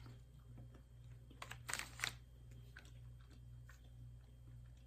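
A person chewing and crunching a snack, faint, with a few louder crunches about a second and a half in, over a steady low hum.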